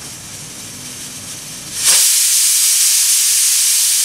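Stovetop pressure cooker venting steam from its weighted whistle valve. A softer hiss builds, then about two seconds in it jumps suddenly to a loud, steady hiss as the weight lifts. This is the cooker's 'whistle', the pressure-release signal counted to time the cooking of the beef.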